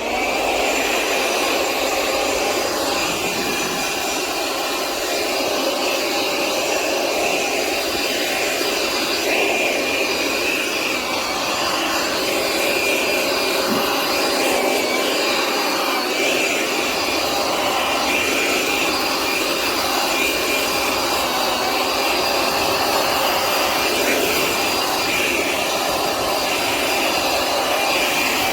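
Makita DUB185Z 18 V cordless blower running steadily at speed: a constant rush of air with a high motor whine held at one pitch.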